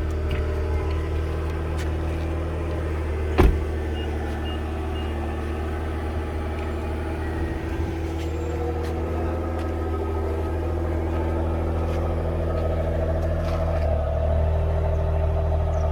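2011 Nissan Maxima's 3.5-litre six-cylinder engine and exhaust running steadily at idle. A single sharp knock comes about three seconds in, and the engine note rises slightly and grows a little louder near the end.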